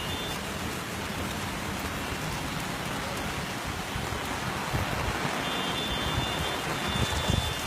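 Heavy rain falling steadily, with low rumbling bursts in the last few seconds.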